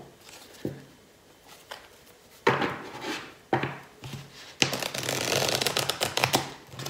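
Tarot Mucha cards being shuffled by hand. A few soft handling knocks come first, then two brief rustles of the cards. Past the middle comes a rapid run of card flicks for about two seconds as the two halves of the deck are riffled together.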